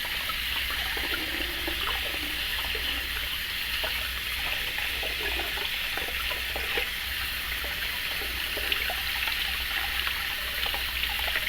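Kitchen sink tap running steadily, its stream splashing over a sand dab held under it while the gut cavity is scraped clean by thumb, with small irregular splashes.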